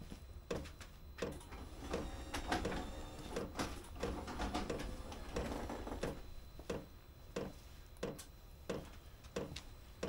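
Diesel air heater's fuel dosing pump ticking steadily, about three clicks every two seconds, as it pulses fuel in during the startup cycle while the glow plug heats. A louder humming stretch swells in the middle.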